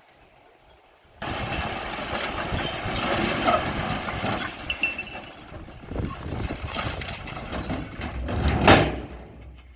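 Bulldozer working among rocks: engine running under load with rock grinding and clattering, starting abruptly about a second in, with a loud knock near the end.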